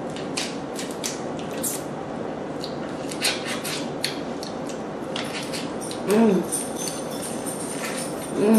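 Crackling clicks of cooked lobster shell being broken and picked apart by hand, dense in the first few seconds and sparser after. Two short sounds of a person's voice come in the second half.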